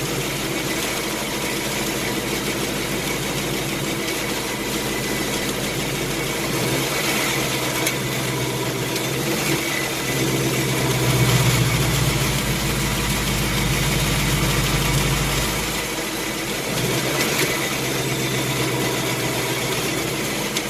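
2018 Mustang GT's 5.0 L Gen 3 Coyote V8 idling after a cold start with the AC loading it, echoing in a garage, carrying the intermittent tapping or ticking known as the 'typewriter' or 'BBQ' tick. The dealership mechanic thinks it is the timing chain slapping its cover, while others blame a cylinder bore or short-block fault. The low idle hum deepens and grows louder for several seconds midway.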